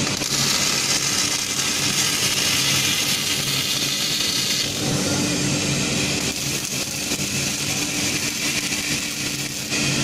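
Steady machine hum and hiss of a robotic MIG welding cell while the robot arm sits between welds, changing in tone about halfway through. The welding arc strikes again right at the end.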